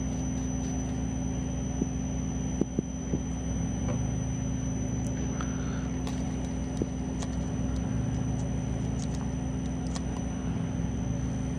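Metal lathe running steadily, its motor and gearing humming, while a form tool takes a slow cut into a spinning blank of A2 tool steel to form the gear cutter's profile. A few short clicks come about two to three seconds in and again near seven seconds.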